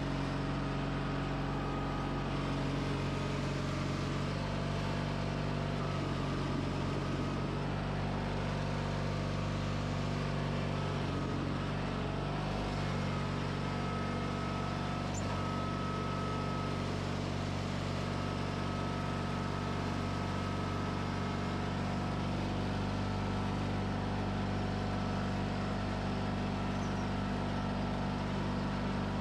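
John Deere 420 garden tractor's engine running steadily under load as its front blade pushes a pile of gravel.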